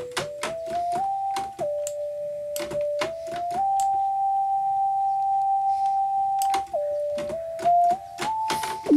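Soft, flute-like synth lead from FL Studio's Sytrus FM synth, played one note at a time and gliding from note to note with portamento, through ping-pong delay and reverb. It steps up, holds one note for about three seconds in the middle, then drops and climbs again. Sharp clicks sound throughout.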